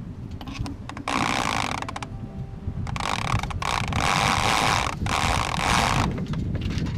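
Sailboat sheet winch clicking and rope running as a line is hauled in, in several runs of about a second each between roughly one and six seconds in. Wind rumbles on the microphone underneath.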